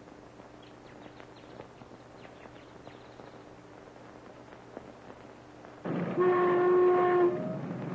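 Faint old-film crackle, then a horn blown once near the end: a steady note with several overtones, lasting about a second and a half.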